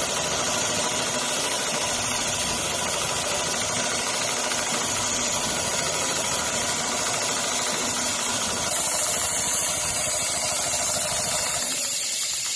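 CNC sewing machine running steadily, its needle stitching rapidly through leather with a continuous mechanical hum and rattle; it stops abruptly at the very end.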